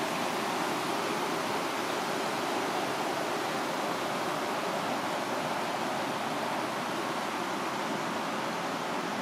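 Rushing water of the Falls of Dochart, the River Dochart pouring over its rocky rapids: a steady, even noise that does not change.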